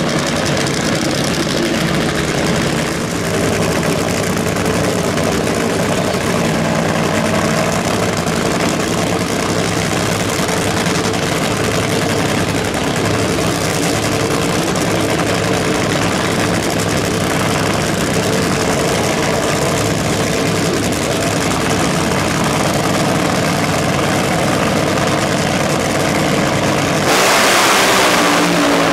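Top Fuel Funny Cars' supercharged, nitromethane-burning V8 engines idling with a steady drone. About two seconds before the end both cars launch at full throttle: a sudden, much louder blast, and the engine note then falls as they pull away.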